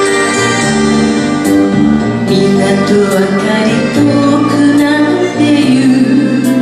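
A woman singing a Japanese kayō ballad live into a handheld microphone over backing music; her voice comes in partway through, after a short instrumental passage.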